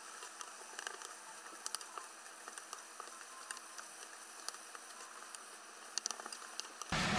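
Wooden spatula stirring enoki mushrooms and cabbage in a frying pan, with scattered light taps and scrapes over a faint sizzle.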